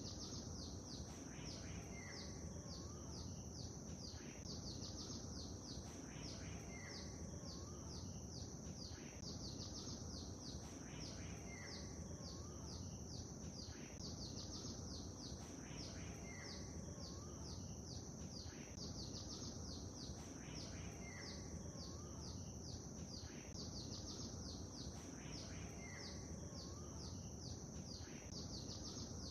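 Small birds chirping in quick, high, falling notes over a steady low wash of lake-water ambience and a thin high hiss. The same short pattern of calls recurs every three to four seconds.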